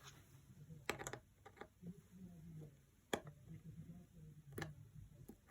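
Faint, scattered clicks and taps of small repair tools on an opened iPhone 7's parts and screws: a quick cluster about a second in, then single clicks.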